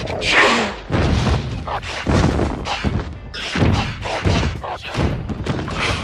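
A run of heavy thuds and crashes, about one a second, over a low rumble: film sound effects of impacts.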